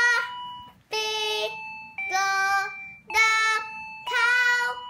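A young girl singing single held notes, about one a second, along with the electronic tones of a toy piano keyboard built into a sound book.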